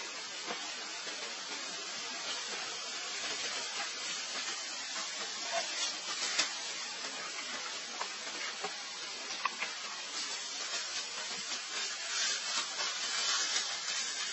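Steady hiss with scattered faint clicks and taps, a little louder near the end.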